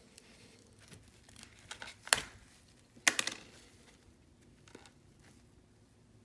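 Handling of a respirator mask's exhalation valve as it is opened up: a few sharp clicks, the two loudest about a second apart near the middle, with faint crinkling between them.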